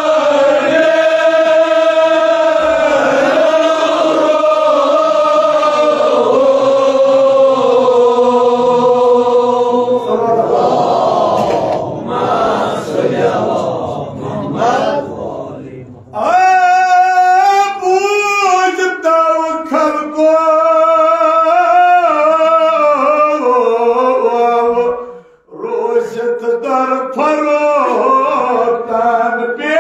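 Male reciter chanting a Kashmiri marsiya (Shia elegy) over a microphone, in long, held, wavering melodic lines. In the middle, for several seconds, many voices overlap before the single voice takes up the chant again.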